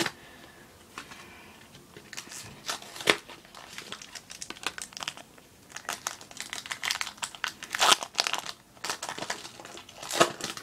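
Foil wrapper of a Pokémon trading card booster pack rustling and tearing as it is opened by hand, in irregular crackles, loudest about eight seconds in.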